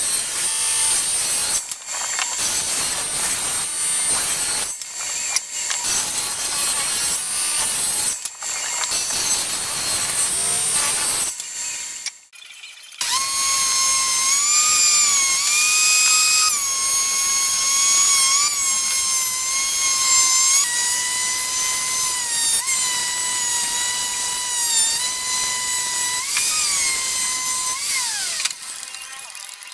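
Table saw ripping a thick hardwood board, the cutting noise broken by short dips. Then, about thirteen seconds in, a portable thickness planer runs with a steady high whine that sags and recovers in pitch as boards feed through, dying away near the end.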